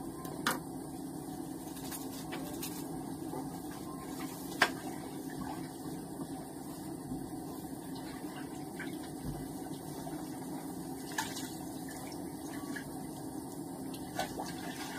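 Steady low hum of room noise, with a few faint sharp clicks, one about half a second in, another between four and five seconds in, and one about eleven seconds in.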